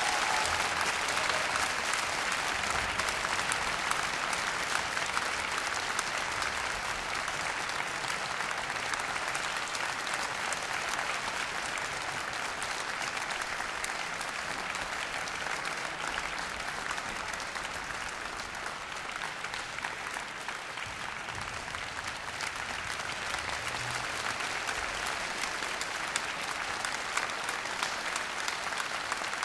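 Large audience applauding: dense, even clapping in a reverberant concert hall.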